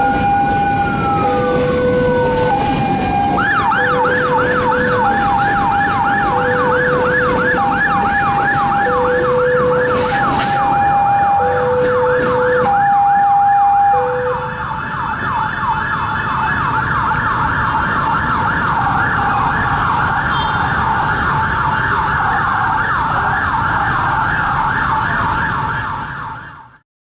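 Electronic siren: one slow rise and fall, then a fast repeating yelp, over a steady alternating two-note tone that stops about halfway through. The sound cuts off abruptly near the end.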